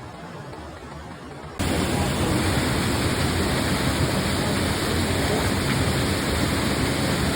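Waterfall rushing: a steady, full-range roar of falling water. It cuts in suddenly at full loudness about a second and a half in, after a quieter steady rush.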